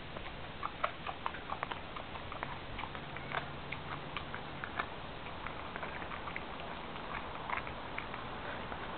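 Siberian husky gnawing on a whole raw chicken: irregular sharp clicks and crunches of teeth on meat and bone. They come thick and fast for the first few seconds, then grow sparser.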